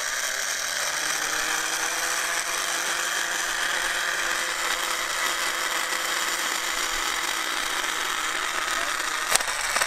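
Starter motor from a 1970 Plymouth Satellite, run on a booster pack with no load: it spins up with a rising whine in the first second, then runs with a steady electric whine until it cuts off near the end. It is an old starter, long stored, that turns now but is far from healthy.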